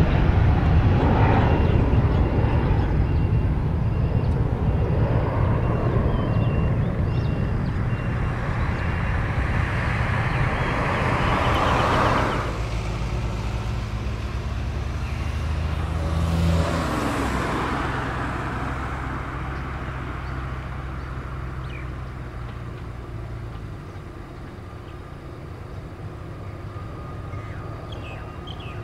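Departing jet airliner's engines, loud at first and slowly fading as it climbs away. Two road vehicles pass, swelling and fading near the middle.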